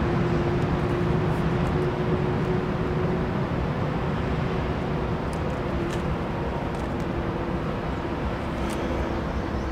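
A Norfolk Southern freight train running by: a steady low rumble with a steady engine hum, easing off slightly, and a few faint clicks.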